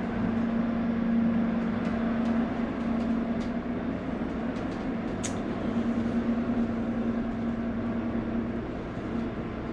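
Steady drone of a motor yacht's running machinery heard inside the cabin: a constant low hum with a faint hiss, broken by a few light clicks, the sharpest about five seconds in.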